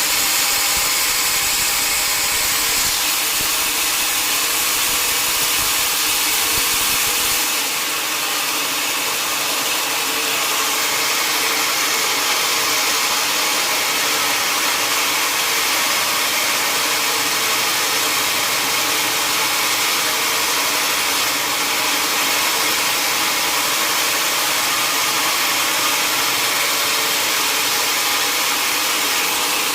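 Sawmill saw running with a steady, loud whir. Its sound changes slightly about seven seconds in.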